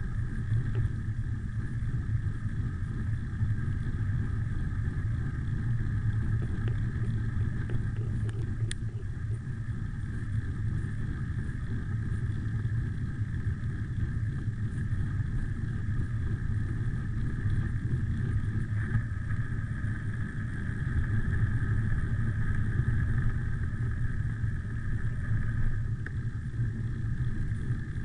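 Wind buffeting a handlebar-mounted camera's microphone, with the rumble of road-bike tyres on asphalt during a fast downhill run, steady and a little louder for a few seconds after the middle. A single sharp click about nine seconds in.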